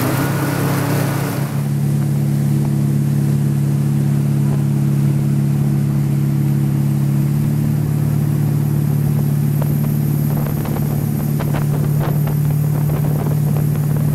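Tow boat's inboard engine running steadily at towing speed, heard from on board at the stern. There is a windier, hissier stretch at the start, and a few short knocks in the last few seconds.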